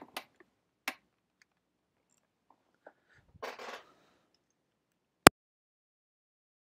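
Small handling noises: a couple of light clicks and a brief rustle, then a single sharp knock about five seconds in, the loudest sound.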